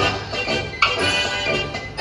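Instrumental music with several instruments playing notes together, a new chord struck about a second in.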